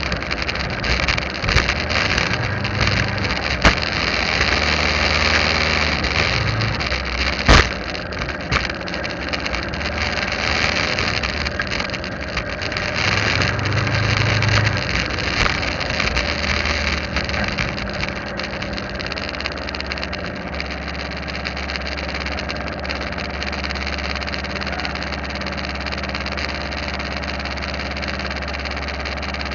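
Motorcycle engine running on the move with wind and road noise, then easing off and settling into a steady idle about two-thirds of the way through once the bike has stopped. Two sharp clicks in the first few seconds.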